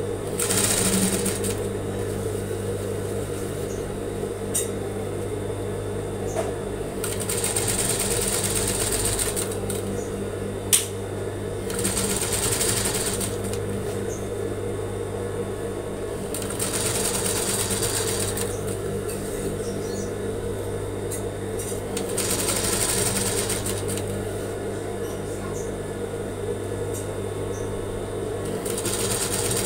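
Sewing machine running continuously as it topstitches fabric, its steady hum swelling louder every few seconds, with one sharp click about eleven seconds in.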